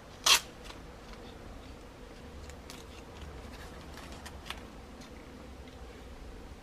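Masking tape pulled off a small painted model part: one short, loud rasp, followed by a few faint clicks as the part is handled, over a faint steady hum.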